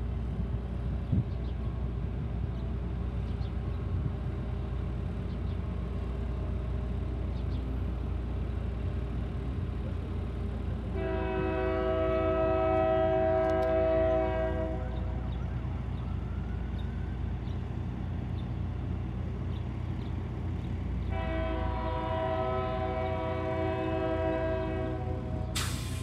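Diesel locomotive air horn sounding two long multi-tone blasts, each three to four seconds, over a steady low rumble. A brief sharp crack comes just before the end.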